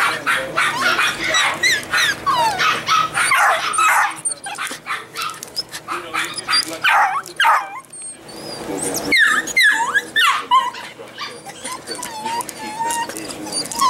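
Golden retriever puppies yipping, whimpering and giving short barks in quick succession, with a long wavering whine in the second half.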